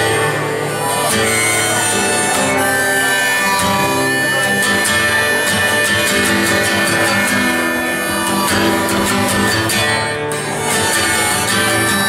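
Live music with guitar, steady and loud, with no singing in this stretch.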